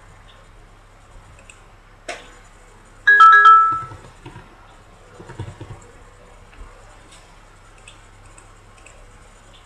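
A short electronic alert chime of two notes, the higher first, a few seconds in, announcing that the captcha has arrived in the phone's SMS app. A single click comes just before it and a few soft taps after.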